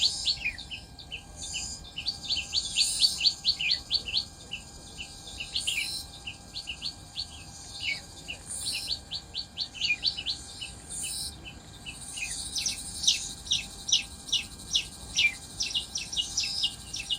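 Small birds chirping in rapid trills: series of short, falling notes repeated several times a second, one series after another without a break.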